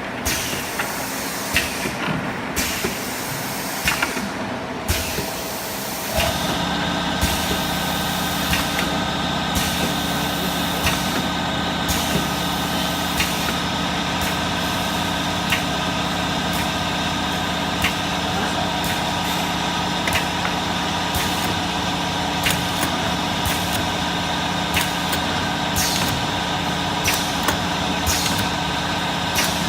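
Automatic perfume bottle filling and crimping machine running on a test run, with repeated sharp clicks and air hisses from its mechanism. About six seconds in, a steady multi-tone motor hum starts and runs on under the clicks.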